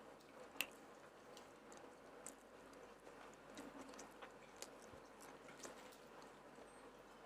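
Faint chewing and mouth sounds of someone eating, with scattered soft clicks and one sharper click about half a second in.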